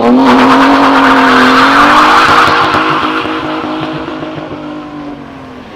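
BMW 3 Series convertible making a wheelspin launch. The engine is held high in the revs while the rear tyres spin and screech, and the sound fades over the last couple of seconds as the car pulls away.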